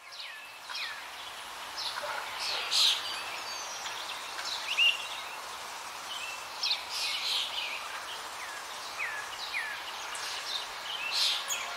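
Birds chirping and calling many times, short high notes and quick downward whistles, over a steady background hiss.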